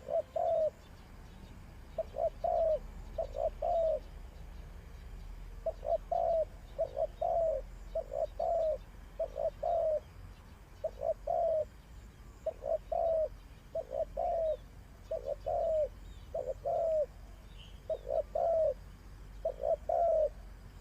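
Spotted dove cooing: short phrases of two or three low coos repeated over and over, about one phrase every second or so, with a brief pause a few seconds in.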